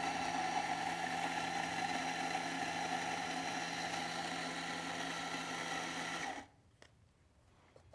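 Ceado flat-burr espresso grinder motor running steadily as it grinds coffee beans into a paper cup, then cutting off abruptly about six and a half seconds in.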